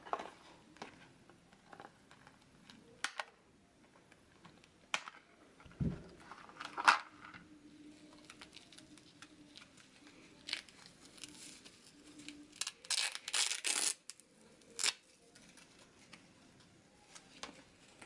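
Side-cutting pliers snip the ties holding a reflective LED band to its packaging card: several sharp clicks with a dull bump in between. A little past the middle the band's velcro fastening is ripped apart in a short tearing rasp.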